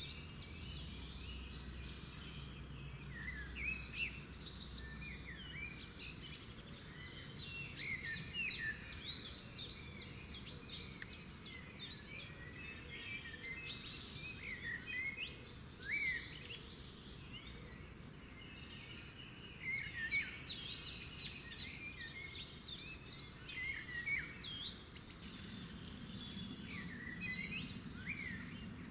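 Birds chirping: many short calls that glide up and down, with quick ticking notes mixed in over a faint steady background.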